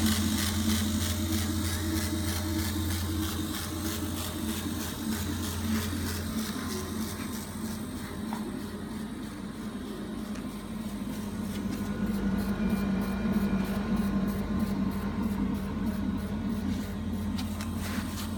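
Kamach 1510 laser cutting machine running under test: a steady mechanical hum with fast faint ticking from its moving parts. The lowest hum drops away about six seconds in.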